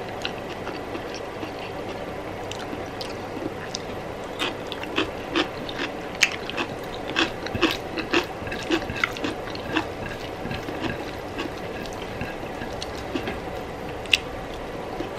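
Close-up eating sounds of rice and curry: wet chewing and mouth smacks with many small, irregular clicks, over a steady faint room hiss.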